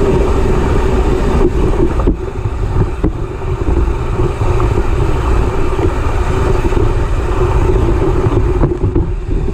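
Mountain bike riding down a dirt trail: wind buffeting the microphone over the steady rolling noise of the knobby rear tyre on dirt, with a few sharp knocks as the bike jolts over bumps.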